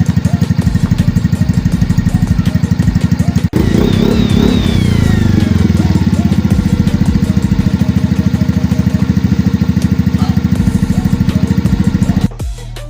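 Yamaha Mio M3 scooter's single-cylinder engine running through an aftermarket BSM exhaust pipe, a loud, even pulsing exhaust note. It cuts out briefly about three and a half seconds in, then comes back louder and rougher for a moment before settling to the same even pulse.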